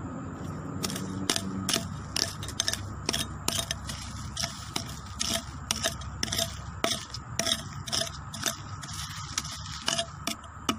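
Repeated scraping and crackling of dry leaf litter and soil being dug through to recover a metal-detector target, at about two or three quick strokes a second.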